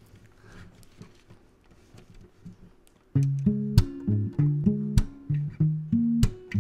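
Acoustic guitar begins the intro of a blues song about three seconds in, playing rhythmic picked bass notes and chords, after a few quiet seconds of small handling sounds.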